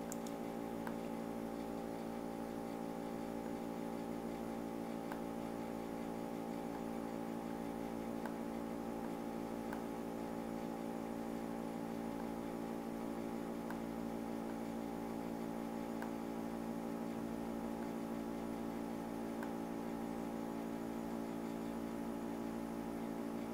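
Steady electrical mains hum in the recording, an unchanging buzz made of several stacked tones, with a few faint clicks scattered through it.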